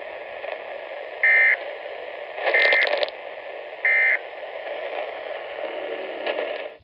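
Solar Crank CR1009 weather radio hissing with static and sounding three short electronic data-burst beeps about a second apart: the end-of-message bursts that close a NOAA Weather Radio warning. The sound cuts off suddenly near the end as the radio is switched off.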